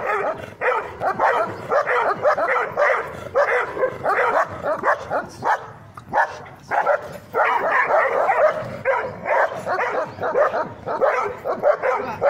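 Dogs barking rapidly and almost without pause, several barks a second, easing briefly about six seconds in before picking up again.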